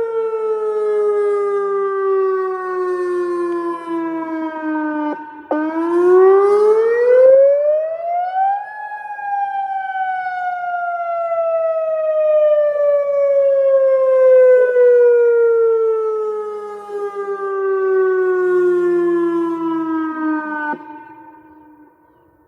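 Outdoor tornado warning siren sounding a wail. Its pitch falls, sweeps quickly up about five seconds in, then slides slowly down for about twelve seconds. Near the end it stops abruptly and the sound dies away.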